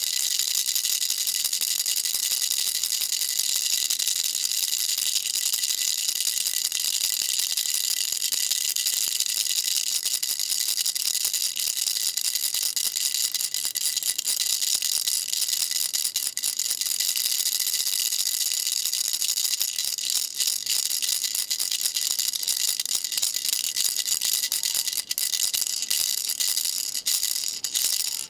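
Baby rattle shaken steadily in a dense, continuous high rattle; near the end the shaking breaks into separate shakes with short gaps between them.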